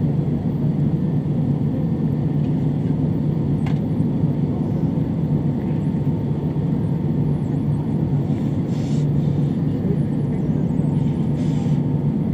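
Steady cabin rumble of an Airbus A320 taxiing, its jet engines running at low power, with a faint steady whine above the rumble.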